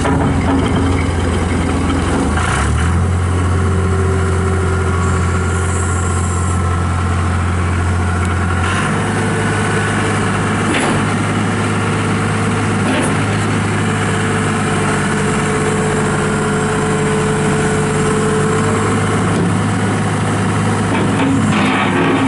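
2003 John Deere 250 skid steer loader's turbo diesel engine running just after starting, idling steadily. Its speed steps up slightly about nine seconds in and holds there.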